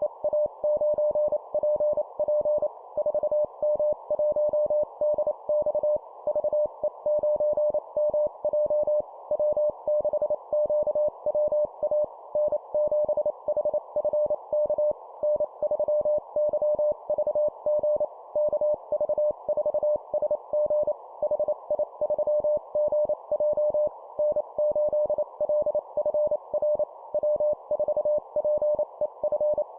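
Morse code (CW) at 25 words per minute: a single mid-pitched tone keyed on and off in rapid dots and dashes with short pauses between groups, spelling out amateur radio call signs for copy practice.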